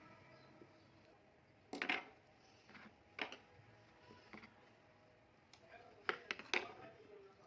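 Light clinks and knocks of kitchen dishes and utensils being handled. The loudest comes about two seconds in, with a few quieter ones after it and a quick cluster near the end.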